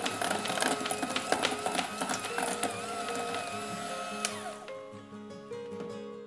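Electric hand mixer running with a steady whine, its beaters churning butter and sugar in a stainless steel bowl. The motor is switched off about four seconds in and winds down in a falling tone. Background music plays throughout.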